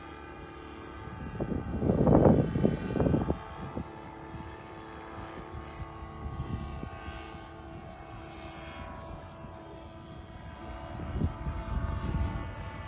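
Paramotor engine and propeller droning steadily overhead, a distant airborne hum. Wind buffets the microphone about two seconds in and again near the end.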